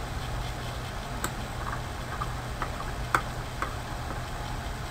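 Computer mouse clicking several times at uneven intervals, sharp short clicks with the loudest about three seconds in, over a steady low hum.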